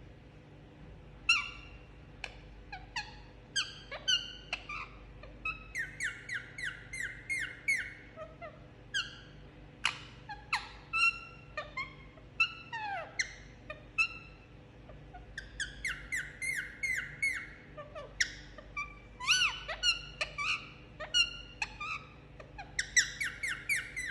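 Indian ringneck parakeet making short, sharp chirps and squawks throughout, often in quick runs of about four calls a second.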